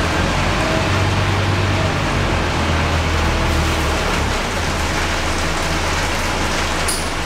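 Inside a Scania K230UB bus on the move in rain: a steady low drone from its Scania DC9 diesel engine under an even hiss of rain on the windows and body and wet-road tyre noise. A short click comes near the end.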